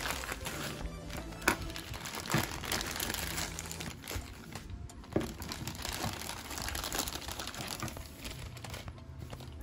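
Clear plastic packaging bags crinkling as the parts of a figure are unwrapped, with a few sharp crackles, over background music.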